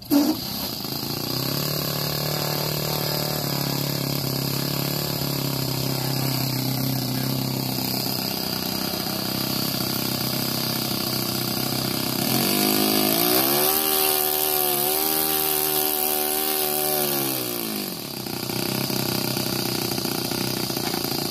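Small model-aircraft engine on an RC float plane starting up abruptly and running steadily, then revving up for about five seconds from about twelve seconds in before dropping back to idle.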